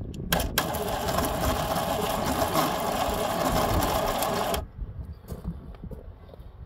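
New electric starter motor cranking the old Fiat 127 engine with a steady whir for about four seconds, then cutting off abruptly without the engine catching.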